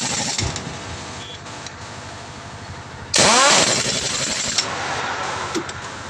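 Pneumatic impact wrench working a truck's wheel nut: a loud burst about three seconds in, its pitch rising as the air motor spins up, lasting about a second and a half, with the tail of an earlier burst fading at the start.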